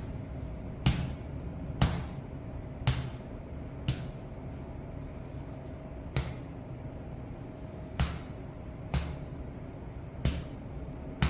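A series of sharp knocks, about one a second with a longer pause midway, over a faint steady hum.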